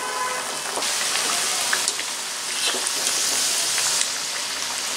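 Masala vadai (chana dal fritters) deep-frying in hot oil in a kadai: a steady hissing sizzle with scattered crackles and pops.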